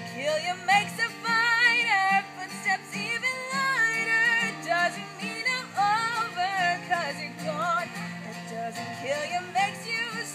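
A woman singing a melody with wavering, held notes while strumming an acoustic guitar.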